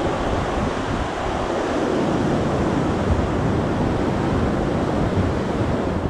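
A waterfall swollen with snowmelt, running at high flow: a steady, dense rush of water.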